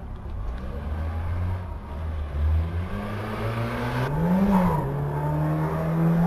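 Car engine revving hard: a low rumble, then a climb to a peak about four and a half seconds in, a quick drop, and revs held steady and high as the car slides around.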